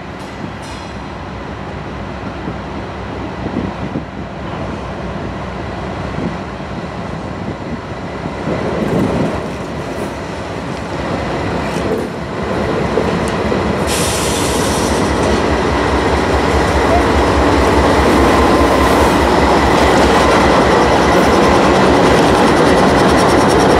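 BNSF freight train led by GE diesel locomotives approaching and passing close by, the engines' rumble growing steadily louder as it nears. From about halfway through, the locomotives go past and the wheels clatter over the rails in a steady rhythm.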